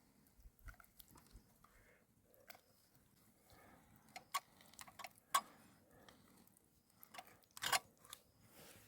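Scattered faint clicks and small knocks, irregular, with a few sharper ones about four and five and a half seconds in and a short crunchy cluster near eight seconds.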